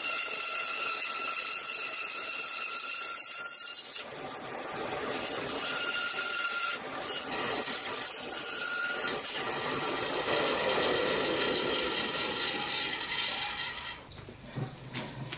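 A homemade power saw's thin blade cutting through a hardwood block, a steady running saw noise with a whine as the wood is fed through to slice off a slab. The sound drops away near the end as the cut is finished.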